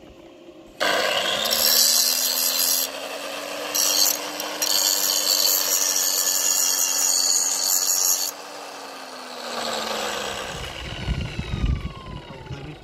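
Handheld electric power tool cutting: the motor starts suddenly about a second in and spins up, runs steadily for about seven seconds with a loud hiss of cutting, then winds down, followed by a few low knocks.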